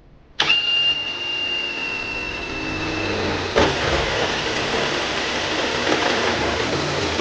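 SATA 18 V brushless cordless drill in high gear, driving a 45 mm high-speed-steel hole saw into thin sheet metal. The motor starts with a steady high whine. About three and a half seconds in, the saw teeth bite and a rough grinding, scraping noise of cutting metal carries on.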